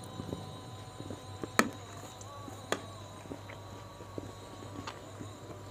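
Close-miked mouth sounds of someone eating fried gourami by hand: scattered sharp chewing clicks and lip smacks, the loudest about one and a half seconds in and another just under three seconds in, over a steady low hum.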